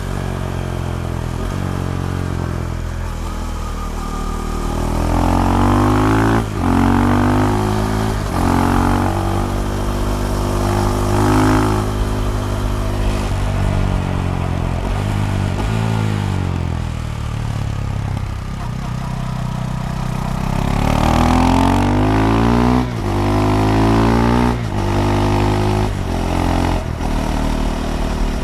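KTM Duke 390 single-cylinder engine through a de-catted Akrapovic slip-on exhaust, pulling hard through the gears twice, with the pitch climbing and briefly dropping at each upshift. In between it slows as the rider rolls off.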